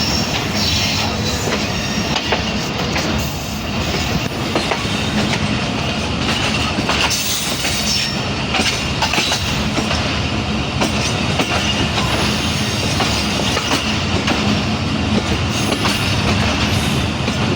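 Moving passenger train heard from on board: a steady rumble of wheels on the track with irregular clicking of rail joints, and a faint metallic wheel squeal over it.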